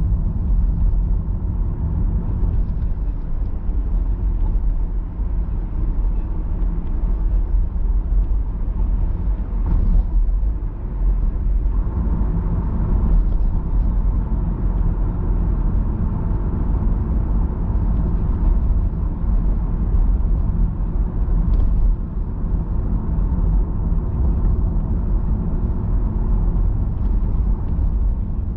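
Steady road noise inside a moving car's cabin: a continuous low rumble of tyres and engine while cruising through city traffic.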